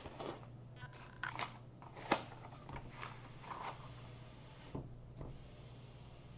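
Diamond painting canvas and its plastic cover sheets being unrolled and smoothed flat by hand on a table: faint rustling and crinkling with a few sharper crackles, the sharpest about two seconds in.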